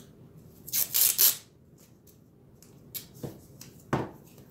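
Handling noises from craft work: a loud, brief rasping scrape about a second in, then several light clicks and a duller knock near the end.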